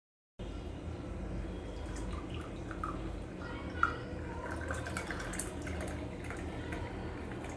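Hot herbal tea trickling and dripping through a strainer into a glass, with scattered small drips and a single light tap about four seconds in.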